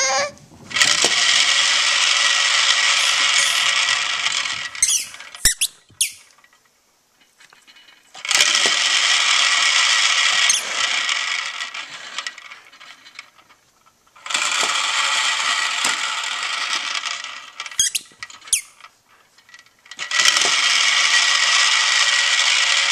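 Push-down spinning top toy with loose balls inside its clear plastic dome, set spinning four times: each spin gives a few seconds of steady whirring and rattling that then dies away as it slows.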